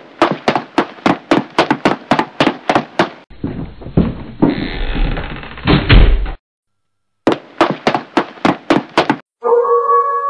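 Horror-intro sound effects: rapid knocking at about five knocks a second, then a loud, harsh rumbling noise lasting a few seconds, a second run of knocking, and an eerie sustained music tone beginning near the end.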